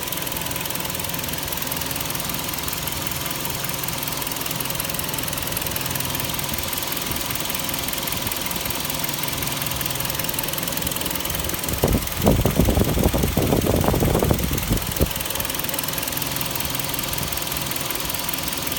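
Kia Sportage's G4KD 2.0-litre four-cylinder petrol engine idling steadily, with a noise that the owner questions as a possible knock. About twelve seconds in, a louder irregular clatter lasts for about two seconds.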